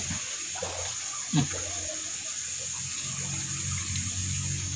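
Steady rush of flowing water with a constant high whine above it, and a brief murmur of a voice about a second in.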